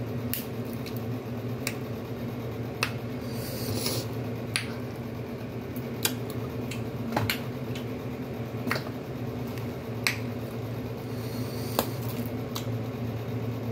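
Cooked crab leg shells being cracked and snapped apart by hand, giving sharp irregular cracks every second or so, with a couple of brief rustles, over a steady low hum.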